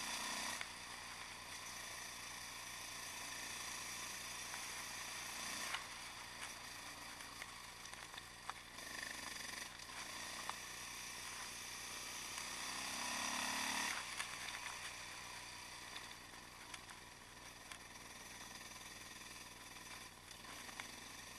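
Yamaha XT660X single-cylinder supermoto with a Mivv exhaust, running at an easy cruise and heard thin and quiet from a handlebar-mounted camera, mixed with wind rush. The engine swells for a couple of seconds about two-thirds of the way through, then drops back.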